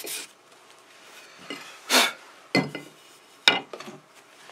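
A last brief rub of sandpaper on a wooden hatchet handle, then a short scrape and a few sharp knocks with a light metallic clink as things are handled and set down on a wooden workbench.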